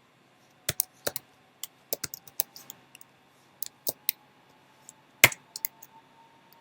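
Typing on a computer keyboard: irregular keystroke clicks, a few a second, the loudest about five seconds in.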